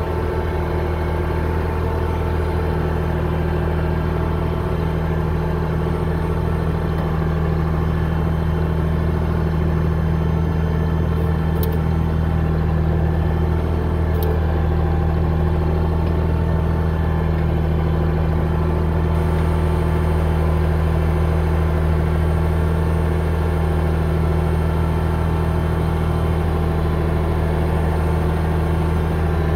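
Bulldozer engine running steadily at a constant speed, a deep even hum that holds the same pitch throughout.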